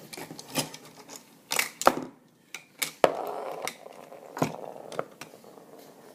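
Glass marbles clicking and clacking against hard plastic as they are slotted one by one into a B-daman toy's marble magazine, a series of irregular sharp clicks.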